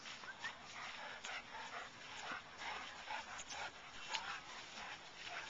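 Dogs vocalizing in rough play: a run of short barks and yelps, two or three a second.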